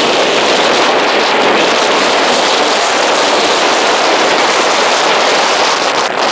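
Wind blowing over the microphone: a loud, steady rushing noise with no clear rhythm.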